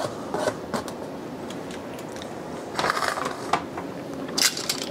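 Kitchen handling sounds: a plastic cutting board scraped and tapped over a stainless steel mixing bowl as chopped scallions are pushed off it, with scattered light knocks and a short, crisp burst near the end.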